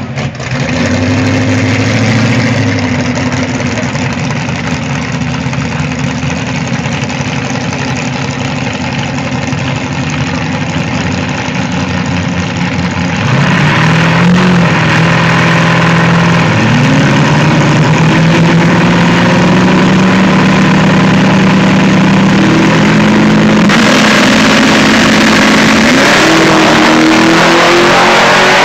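Drag car's engine running loud at the starting line, then launching at full throttle about thirteen seconds in and pulling away down the strip, its pitch climbing and stepping up several times as it shifts up through the gears.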